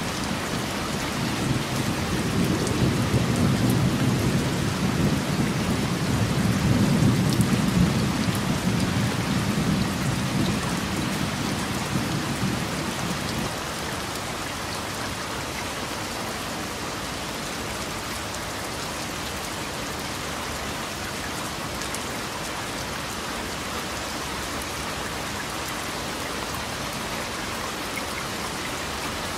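Steady rain with a long rolling rumble of thunder. The thunder builds over the first few seconds, is loudest about seven seconds in, and cuts off suddenly about thirteen seconds in, leaving the rain alone.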